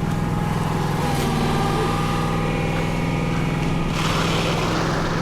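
Engine running steadily at an even speed, with a rushing, hissing noise joining about four seconds in.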